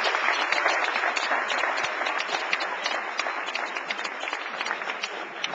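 Audience applauding: many hands clapping together, dying down toward the end.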